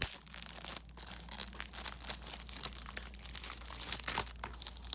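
Plastic crinkling and tearing as the security seal is peeled off a DVD case, a run of irregular small crackles and clicks.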